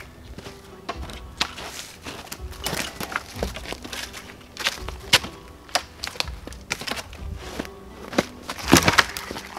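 Dead wooden poles knocking and clattering as they are leaned against a log ridgepole, with dry sticks cracking; the knocks come irregularly, with a loud cluster near the end.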